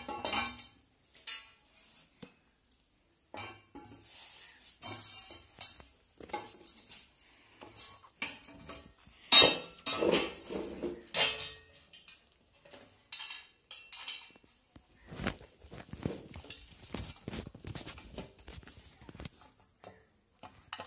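Metal clinks, rattles and knocks as a sewing machine stand's treadle plate is fitted between the stand legs and bolted at its pivot, bolts and nuts being handled. The loudest clank comes about nine seconds in.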